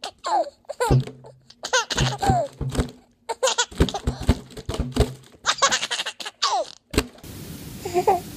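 Infant laughing in a string of short, high giggling bursts and squeals. About seven seconds in it cuts off suddenly to a steady hiss.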